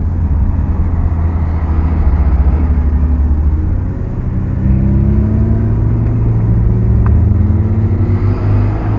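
Ferrari California's V8 engine running hard on track, heard from the open-top cabin. It eases off briefly about four seconds in, then its pitch climbs steadily as the car accelerates.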